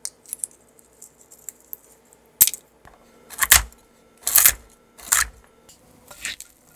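Pistachio shells clicking against each other and the wooden cutting board as they are handled. Then a chef's knife chops walnuts on the board in three heavy chops about a second apart, the loudest sounds here. Near the end, a softer stirring of nut filling in a glass bowl.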